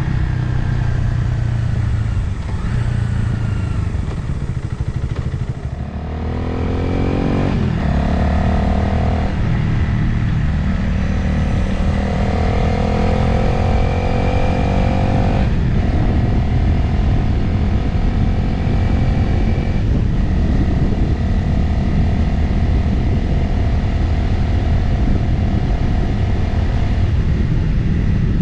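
Motorcycle engine easing off, then pulling hard and rising in pitch, shifting up several times through the gears, with wind rushing over the microphone.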